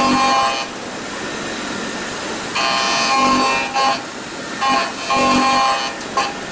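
Hwacheon L1 2500 double-column machining center milling AL6061 aluminium with a 32 mm cutter at 8,000 rpm. A steady hiss runs under a higher cutting whine that swells in and fades out several times.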